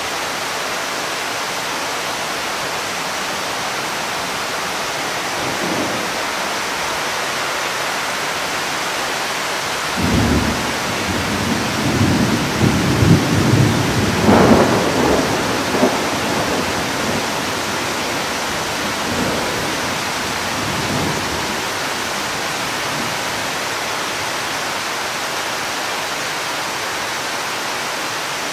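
Thunder rumbling over a steady hiss of rain: a faint rumble about six seconds in, then a loud rolling peal that breaks in suddenly about ten seconds in, peaks a few seconds later and dies away by about twenty-two seconds.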